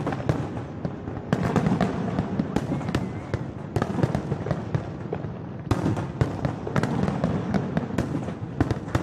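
Aerial fireworks display: a dense run of shell bursts, bangs and crackles, with heavier bursts a little over a second, about four and about six seconds in.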